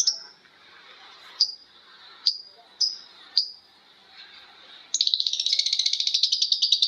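Lovebird calling: four short sharp chirps, then about five seconds in a long, rapid chattering trill starts, the 'ngekek' call.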